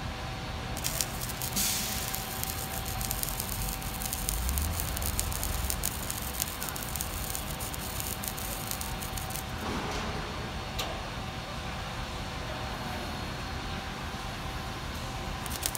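Construction site noise: the engines of truck-mounted mobile cranes running with a steady hum under a broad hiss, with scattered clicks and knocks.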